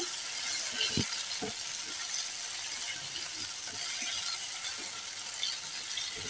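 Tomatoes, garlic, ginger and green chillies sizzling steadily in hot mustard oil in a nonstick frying pan, with a few light knocks of a silicone spatula stirring them, about a second in.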